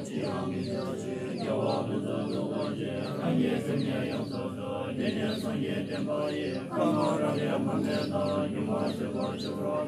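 Group of Tibetan Buddhist monks, boys and men together, chanting prayers in unison in a steady recitation.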